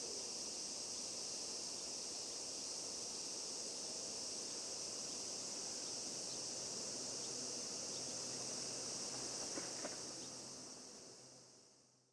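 Faint, steady, high-pitched insect chirring that fades out near the end.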